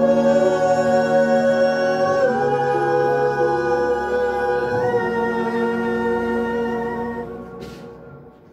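Two men singing the closing held notes of a duet over sustained accompanying chords; the chord changes twice, and the music fades out near the end.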